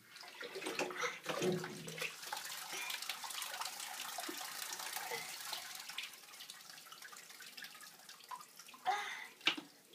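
Water pouring from a plastic toy watering can into a bath-toy water wheel's funnel and trickling and splashing down into the bathwater, tapering off about six or seven seconds in.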